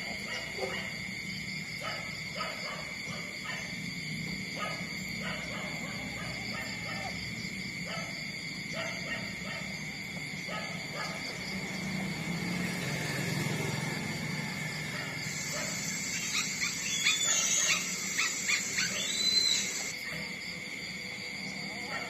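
Newborn puppies nursing from their mother: soft repeated suckling clicks and low grunts, then a run of louder, high squeaks about three-quarters of the way through, over a steady high-pitched hum.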